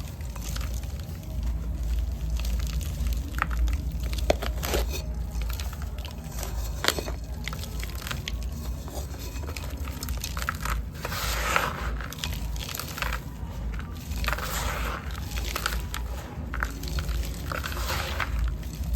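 Dry sand-cement clay crumbling and crunching: a few sharp cracks at first, then three longer gritty bursts of crumbling, over a steady low hum.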